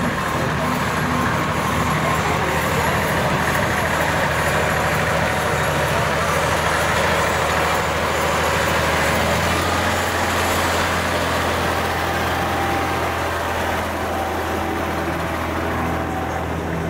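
Vintage tractor engine running steadily at low speed, pulling a loaded float trailer past.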